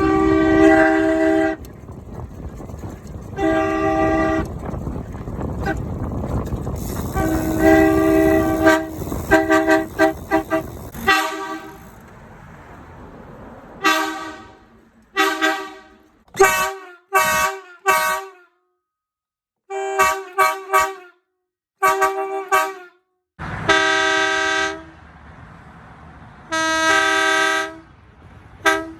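Sparton D-2355 truck horn blowing a series of blasts, a pair of close low notes sounding together. First come a few longer honks and a burst of rapid short toots over a steady background rumble. Then, in the clear, a run of short toots and two longer blasts near the end.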